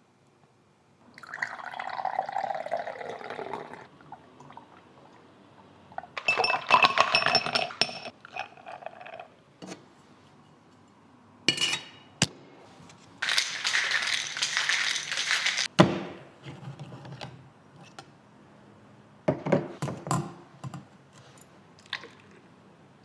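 Drink making at a café counter: liquid poured into a cup, glassware clinking, and a few knocks and clatters of cups and utensils.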